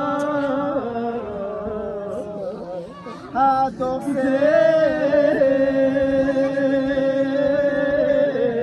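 A Balti marsiya, a Shia mourning elegy, chanted in long drawn-out notes. The chanting drops away about three seconds in, then comes back louder and carries on.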